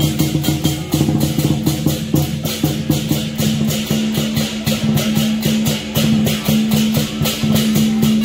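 Music with a fast, even beat of sharp percussive strikes, about five a second, over a held low note.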